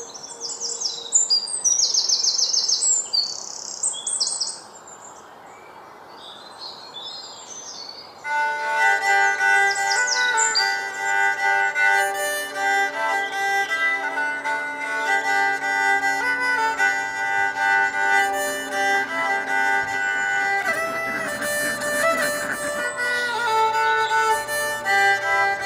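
Birds chirping in quick high trills, then a few seconds of faint steady hiss. About eight seconds in, background music begins: a violin melody, with a few more bird chirps over it.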